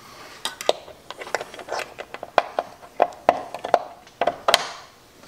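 Hands handling a cord and a plastic bottle on a metal launcher bracket: a run of irregular small clicks, taps and rustles.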